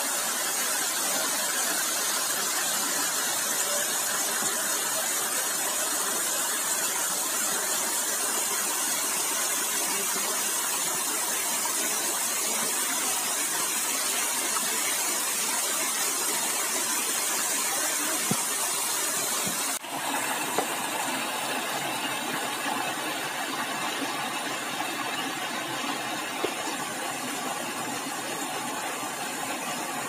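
Steady rush of water from a waterfall and the rocky stream below it, with a brief break about twenty seconds in after which it carries on a little quieter.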